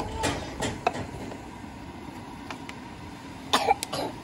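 A few clinks and knocks of metal being handled in a steel food cart's compartment, the loudest a quick cluster near the end, over a steady background rush.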